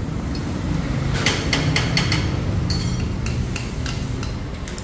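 Irregular metallic clicks and taps from a small metal part and hand tool worked at the outlet of a scooter's aftermarket muffler, over a steady low hum.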